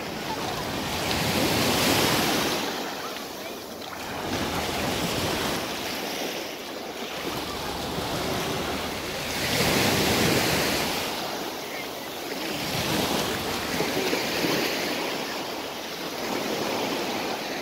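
Ocean surf breaking and washing up a sandy beach, swelling and fading in slow surges every several seconds.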